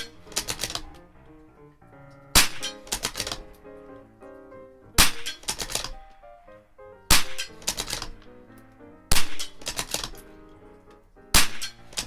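Marlin XT-22 bolt-action .22 LR rifle firing five shots about two seconds apart. Each crack is followed by a quick rattle of clicks as the bolt is worked to chamber the next round for rapid fire.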